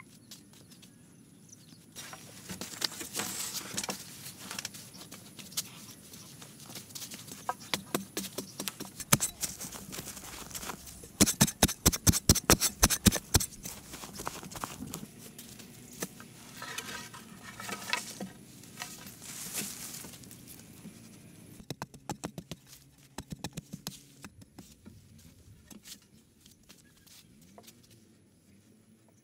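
Knocks and taps of hand building work with bamboo, scattered and uneven, with a run of about ten hard strikes, about four a second, near the middle.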